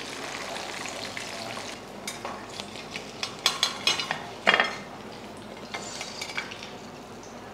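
Hot oil sizzling steadily around fried chicken wings. Partway through come a few light clicks and knocks as a wire skimmer tips the fried pieces onto a plate, with one louder knock just past the middle.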